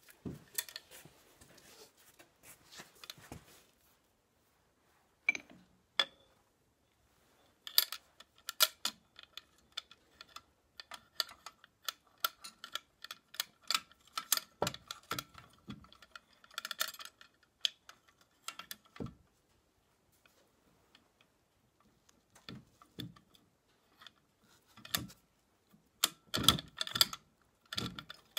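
Cast-iron and steel parts of a Massey Ferguson 35 hydraulic lift cover clinking and knocking irregularly as the hydraulic cylinder is handled and seated in the housing, with some strikes ringing briefly and a few short pauses.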